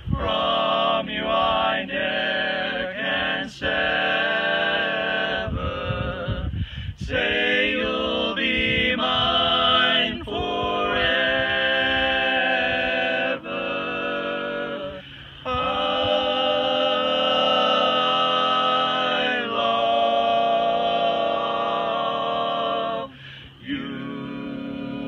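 Barbershop quartet of four men singing a cappella in close four-part harmony (tenor, lead, baritone and bass), with a few short breaks between phrases.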